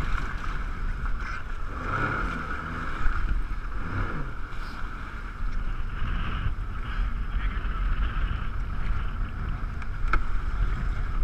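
Jet ski engine running with a steady drone that swells briefly about two and four seconds in, with wind rumbling on the microphone.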